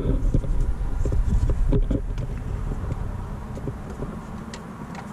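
Light knocks and clicks of a car's centre-console trim piece being handled and fitted into place, over a low rumble, busiest in the first couple of seconds.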